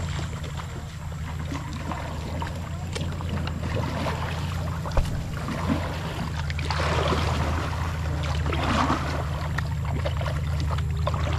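Kayak moving down a shallow creek: water rippling and splashing along the hull, swelling into two louder splashes about seven and nine seconds in, over a steady low rumble.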